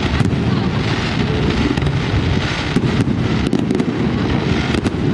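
Fireworks display: a dense, continuous barrage of bursts and crackling, with sharper cracks standing out every second or so.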